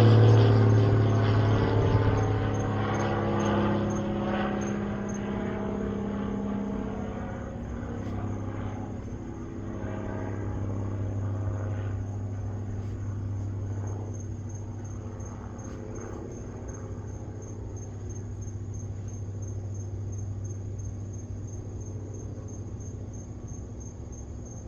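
Aircraft engine droning overhead, then fading steadily as it flies away. Crickets chirp steadily throughout.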